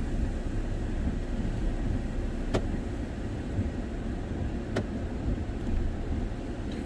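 Steady low rumble inside a parked work van's cab, with two sharp clicks about two seconds apart.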